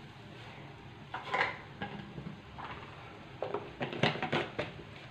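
Chana dal and water heating in a pan, coming up to the boil, with a handful of short sharp clicks and pops over a low steady background.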